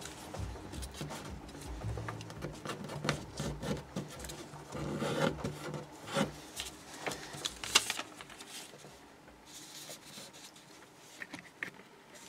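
A 15 cm square of origami paper being folded and creased by hand: rustling and crinkling, with sharp crackles as the folds are pressed flat and one louder crackle past the middle.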